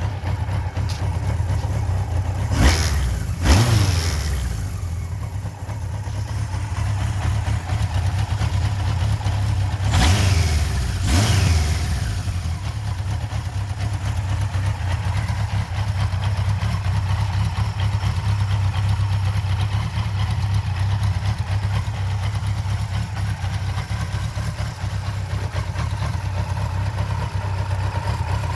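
Kawasaki Z1-R motorcycle's air-cooled inline-four engine idling just after starting. The throttle is blipped twice about three seconds in and twice more about ten seconds in, each rev rising and falling back, then it settles to a steady idle. It runs with no abnormal noises.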